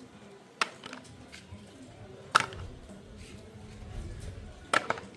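Toy cars being handled, knocking sharply against each other or a hard surface: three clacks about two seconds apart, the loudest in the middle and the last one doubled, with faint clicks between.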